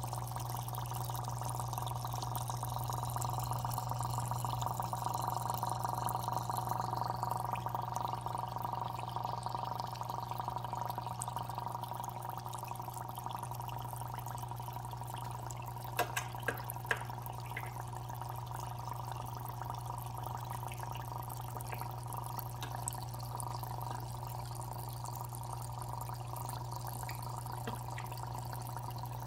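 Aquarium running: steady bubbling, trickling water over a constant low hum. A few sharp clicks come about halfway through.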